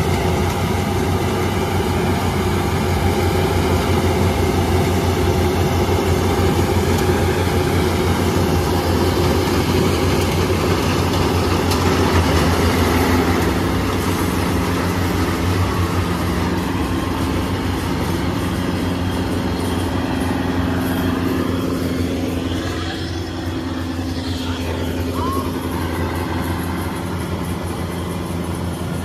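Yanmar AW82 combine harvester's diesel engine and threshing machinery running steadily under load while harvesting rice. The sound becomes a little quieter and farther off about three-quarters of the way through.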